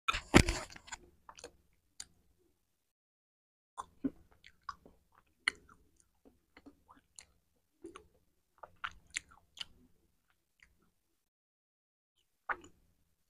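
Chewing picked up by a clip-on microphone held right at the mouth: a loud crunchy bite in the first second, then scattered short crunches and mouth clicks with silent gaps between, and one last crunch near the end.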